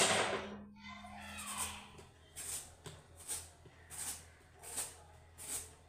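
A knock at the very start, then a hand-held vegetable peeler scraping strips of skin off a yellow cucumber in short, regular strokes, about one every three-quarters of a second, over a steady low hum.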